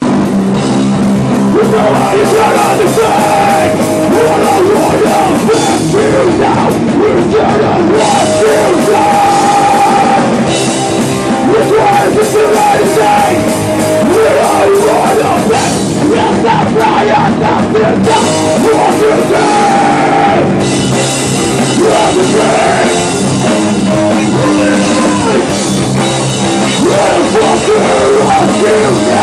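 Hardcore band playing live, loud and continuous, with a drum kit driving the rhythm.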